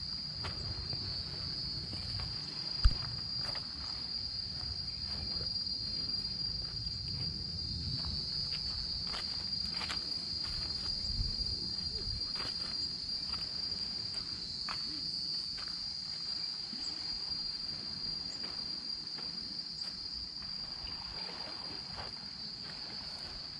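Steady, shrill chorus of insects holding one unbroken high tone, over a low rumble, with a single sharp thump about three seconds in.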